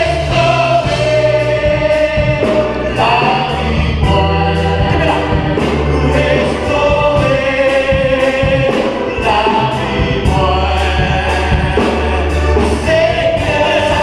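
Choir singing a gospel worship song over a band, with a steady beat and deep held bass notes.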